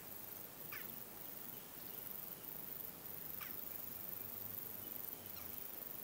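Eurasian jackdaws in a flock giving short, sharp single calls, one every couple of seconds, the last one fainter.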